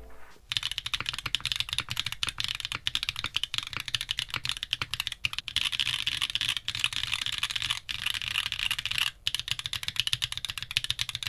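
Typing on a mechanical keyboard with stock, unlubed Zenclack Turbulence hyper-tactile switches in an aluminium-plate Vertex Arc 60 with plate foam and GMK keycaps: a fast, continuous run of keystroke clacks with one short pause about nine seconds in. The stock switches sound clean, with no unwanted noises.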